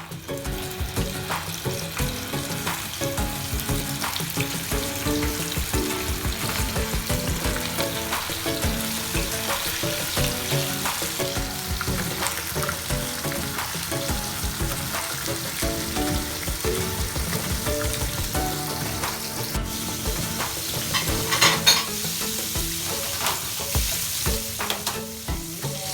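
Flour-coated dory fish deep-frying in hot oil in a pan: a steady sizzle full of popping crackles, with a louder burst of crackling about 21 seconds in.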